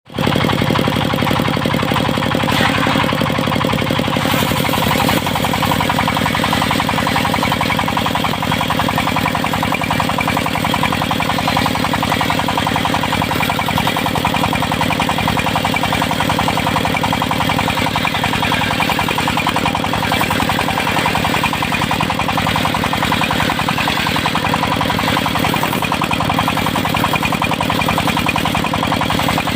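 Engine of a portable circular-saw sawmill running steadily under throttle, its pitch shifting slightly about five seconds in.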